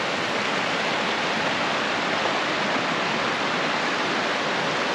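Steady rush of a fast-flowing mountain creek running over rocks in whitewater, an even, unbroken noise.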